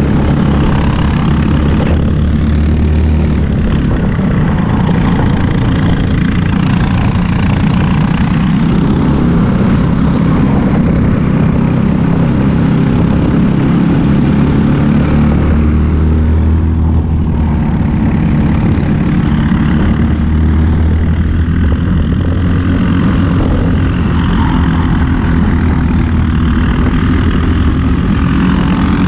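Racing kart two-stroke engines at full race pace, heard from on board: a loud, buzzing engine note that rises and falls in pitch as the throttle is opened and lifted through the corners, with a second kart running close ahead.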